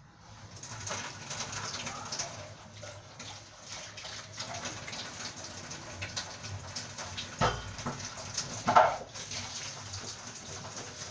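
Tap water running into a kitchen sink during cleaning, with two knocks of items against it about a second apart, the second louder and briefly ringing.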